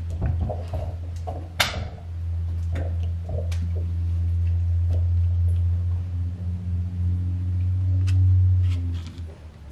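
Clicks and light knocks of the plastic and metal phone mount and quick-release clamp being fitted to a handheld gimbal, with one sharp click about a second and a half in. They sit over a steady low hum that fades near the end.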